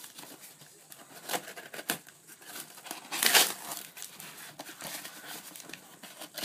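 A taped cardboard parcel being cut and torn open by hand: rustling and crinkling of cardboard and packing tape, with one louder tearing rip a little past halfway.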